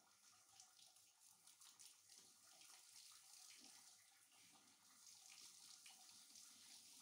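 Faint running water trickling and splashing onto a tiled bathroom floor.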